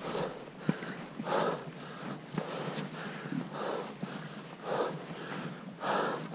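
Heavy, rhythmic breathing of a skier hiking uphill with skis on the shoulder, about one hard breath a second: out of breath from the climb at altitude. A single sharp click sounds a little under a second in.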